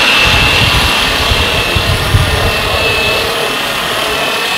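Electric rotary polisher running steadily with a high, constant motor whine and an uneven low rumble as its buffing pad works the bare aluminium skin of a B-29's nose.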